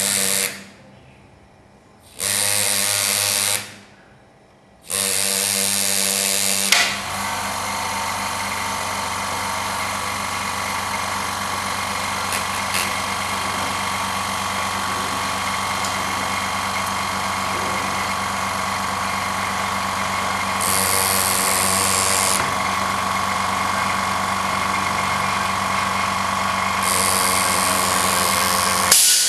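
Pneumatic hand engraver (Andu Engraver) hammering its graver into a metal Harley-Davidson engine cover while cutting an outline. It comes in three short runs over the first seven seconds, then runs without a break, with two louder stretches in the last third.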